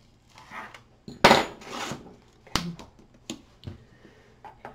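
Handling noises on a paper-covered chipboard box: a loud scraping rub about a second in, then several sharp clicks and taps, as of a metal hand tool worked along the paper and set down on a tabletop.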